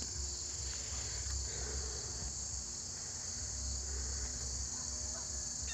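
Steady chorus of crickets, a continuous high-pitched buzzing trill with no breaks, over a faint low rumble.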